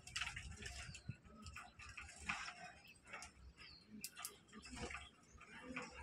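Budgies pecking at fresh coriander on a cage floor: a scattered run of faint sharp ticks and clicks from their beaks, with a few short chirps.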